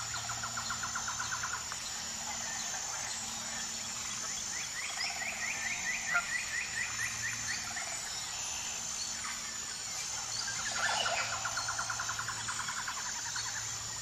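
Marsh wildlife ambience: three rapid trilling calls, one at the start, a longer higher one in the middle and another about eleven seconds in. Under them runs a steady high-pitched whine.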